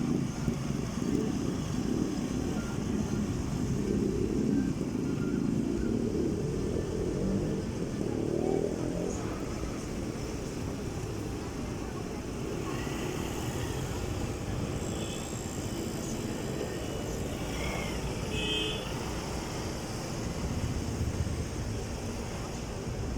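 Vehicle engine running under strain as its wheels spin on the road surface, the vehicle struggling to climb; the sound is heavier for the first several seconds, then eases.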